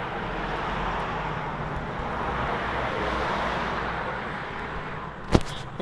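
Typhoon storm wind rushing steadily, swelling a little in the middle and easing near the end, with one sharp knock about five seconds in.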